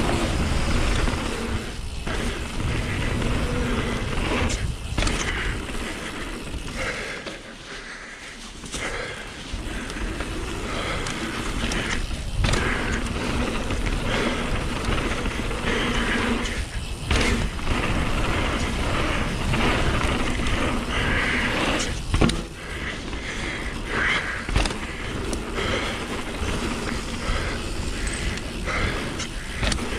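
Wind rushing over a chin-mounted GoPro as a 2018 YT Capra mountain bike runs fast down a hardpack dirt trail, its tyres rumbling and the bike rattling. It goes quieter for a moment about eight seconds in, and sharp thuds come every few seconds, typical of landings off jumps and drops.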